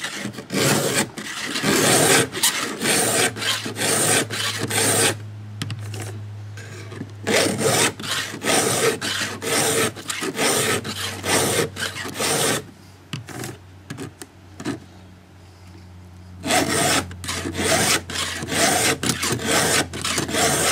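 Stihl EZ file run over a 3/8 low profile saw chain, its round file sharpening the cutters while its flat file lowers the depth gauges. Quick rasping file strokes come in three runs, each stopping for a pause of a few seconds.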